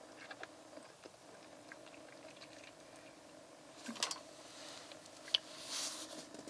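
Nitrile-gloved hands handling and turning a plastic quart oil bottle: soft plastic rubbing and small clicks, with a sharper click about five seconds in and a brief rustle just after, over a faint steady hum.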